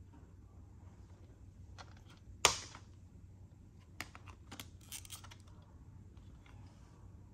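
Plastic CD jewel case being handled: one sharp click about two and a half seconds in, then a few lighter clicks and taps as fingers work at the disc, over a faint low hum.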